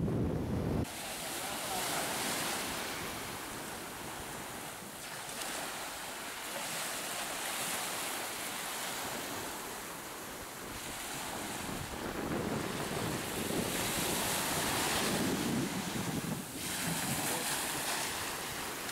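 Small waves breaking and washing up on a sandy beach, the surf swelling and fading every few seconds. A low wind rumble on the microphone cuts off about a second in.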